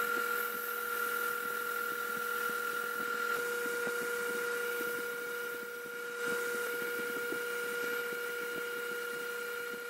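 Wood lathe and a KIMO cordless drill running together, the drill spinning a 120-grit sanding disc against the turning mesquite vase: a steady whine with a scratchy sanding hiss. The sound starts suddenly and stops suddenly, dipping briefly about six seconds in.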